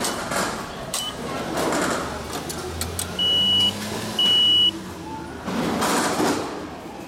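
Railway ticket vending machine: a short beep about a second in as the fare is pressed on the touch screen, then a low hum while the ticket is issued and two longer, louder high beeps a second apart as the ticket comes out of the slot, over station background noise.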